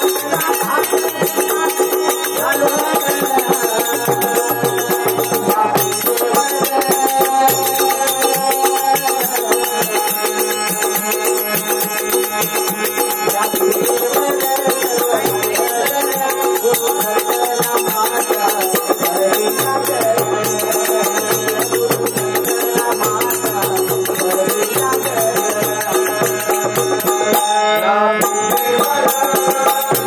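Devotional bhajan music: a harmonium playing a sustained melody with a steady, fast clashing of large brass hand cymbals (tal).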